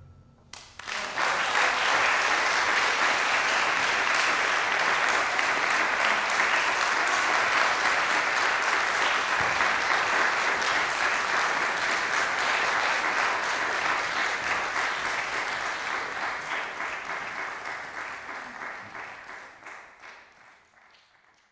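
Audience applauding, starting about half a second in, holding steady, then dying away over the last several seconds.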